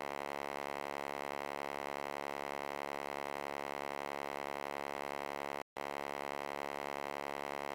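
A steady electronic drone of many held tones that never change, cutting out completely for a split second about five and a half seconds in.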